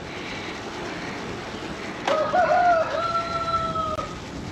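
A rooster crows once, a drawn-out call of about two seconds starting about two seconds in, over a steady rushing background noise.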